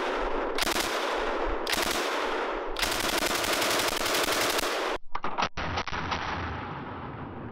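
Soviet DP-27 light machine gun firing 7.62x54R in bursts of automatic fire: the end of one burst, two bursts of about a second each, then a longer burst of about two seconds. About five seconds in, a few sharper cracks follow, and the echo dies away.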